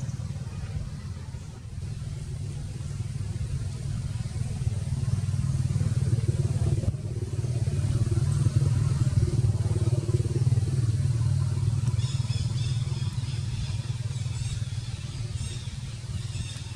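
Steady low rumble like a motor running, a little louder in the middle, with faint high chirps in the last few seconds.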